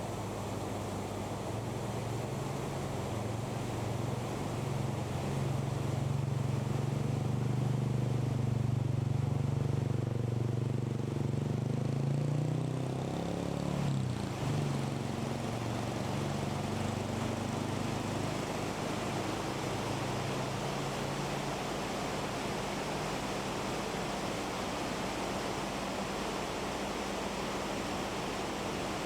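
A motor vehicle's engine draws near, passes about halfway through with a drop in pitch, and fades away, over a steady rushing noise.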